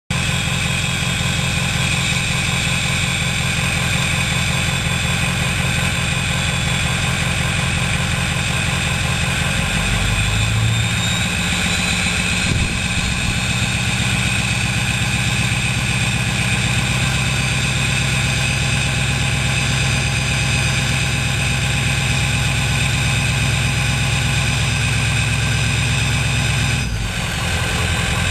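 Ford 6.0L Power Stroke V8 turbo-diesel running at idle, its turbocharger whistling as steady high tones over the low engine note.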